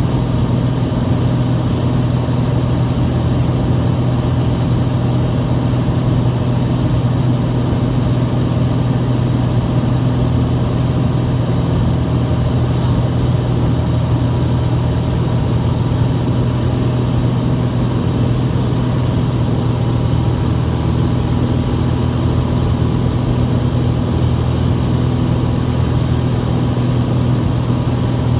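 Cessna 180's six-cylinder piston engine and propeller running steadily, heard from inside the cabin as a constant low hum.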